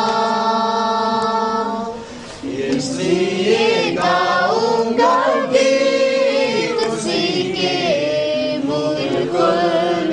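A small congregation singing a hymn together, without accompaniment. A long held note breaks off about two seconds in, then the melody moves on.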